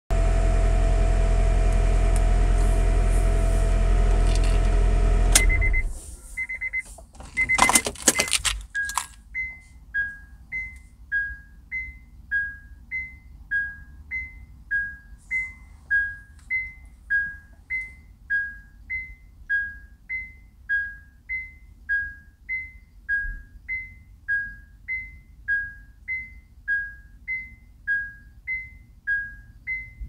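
Honda Prelude's engine humming steadily in the cabin, then shut off about five seconds in, followed by a few clicks and knocks. Then the lights-on warning chime begins, a steady repeating pattern of alternating high and low beeps, the car's warning that the headlights are still on with the engine off.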